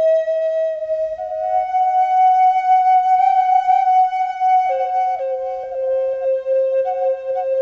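Background music: a flute-like wind instrument playing long held notes, changing pitch about a second in and again near five seconds, with small trills near the end.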